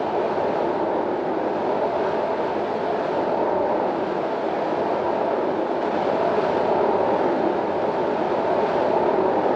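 Wind sound effect: a steady, even rush of wind, mid-pitched and without gusts or whistling.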